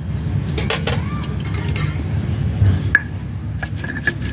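Metal spatula scraping and clinking against a metal wok while stirring thick crab curry: a run of quick scrapes and taps, with a short ringing clink of metal on metal repeating from about three seconds in.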